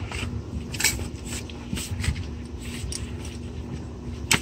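Faint shuffling and handling noises of someone moving about, over a steady low hum, with a sharp click near the end.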